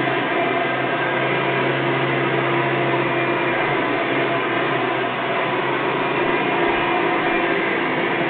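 Hoover Soft and Light Supreme upright vacuum running steadily on a rug, its motor humming and its wooden Cleveland Wood Products brush roll spinning against the carpet, the brush roll driving the machine forward by itself.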